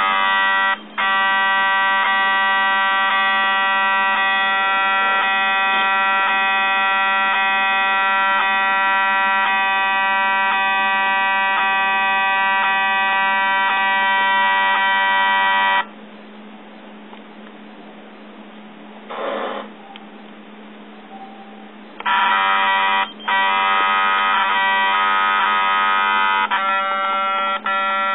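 Yongnuo YN568EX speedlite's zoom motor buzzing steadily while stuck. It stops about sixteen seconds in and starts again some six seconds later, cutting out briefly a few times near the end.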